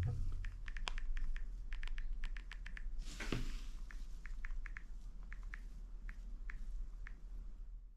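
iPhone on-screen keyboard clicks: a run of quick, irregular ticks as a Wi-Fi password is typed, thinning out in the second half.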